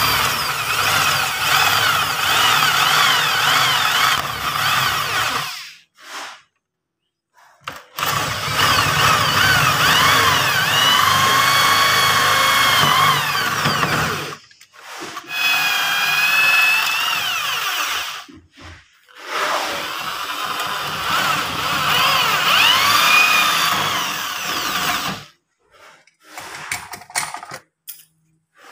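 Handheld electric drill boring a lock hole through a wooden door with a spade bit, run in four bursts of several seconds with short pauses between. The motor's whine rises and dips as the bit bites into the wood. A few light knocks near the end.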